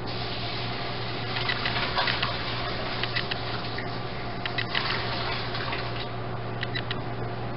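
Hot pasta water pouring and splashing from a stainless steel pot into a colander in the sink, with scattered light clinks of metal as the pot is tipped.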